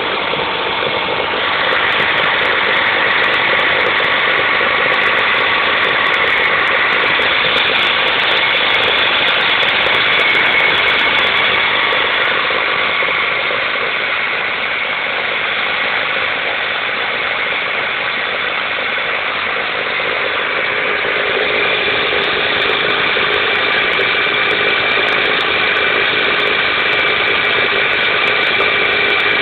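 Toyota 5S-FE 2.2-litre four-cylinder engine running at idle while warming up after a cold start, a steady running sound whose note shifts slightly a couple of times. On this engine the owner reports a rattling noise on cold start that clears once it is warm.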